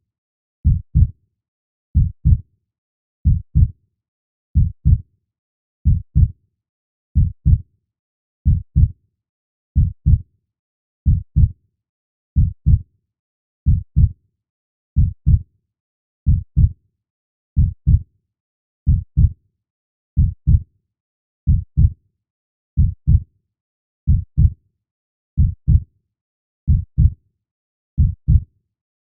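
Slow, steady heartbeat: a low double thump (lub-dub) about every 1.3 seconds, roughly 45 beats a minute, with silence between beats.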